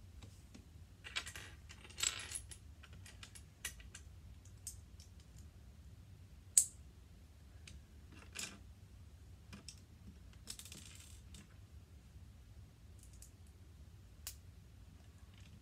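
Small plastic LEGO pieces being handled and pressed together: scattered light clicks and a few short rattles, with one sharper click about six and a half seconds in.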